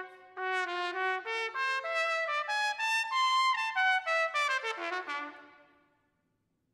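Unaccompanied trumpet playing a quick run of detached notes that climbs to a high point about three seconds in and then falls back to a low note, dying away in the hall's reverberation about a second before the end.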